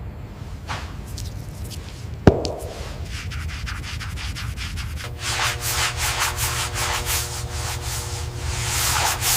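Repeated rubbing or sanding strokes on a surface, coming quickly and steadily from about halfway through, with a single sharp knock a little over two seconds in.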